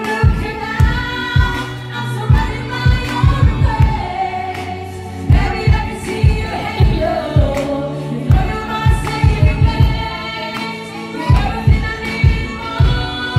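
A woman singing karaoke into a microphone over a backing track, with a steady drum beat and bass.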